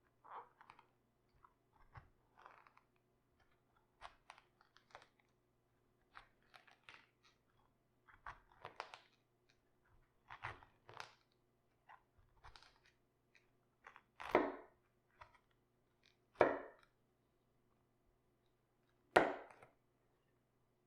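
Raw cabbage crunching and cracking as it is cut and broken apart by hand, in irregular short crunches, with three louder crunches in the second half.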